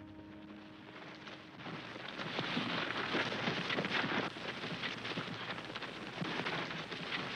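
A held music chord fades out in the first second or so, then a loud, crackling hiss of worn film sound takes over: surface noise from an old film soundtrack running on after the programme has ended.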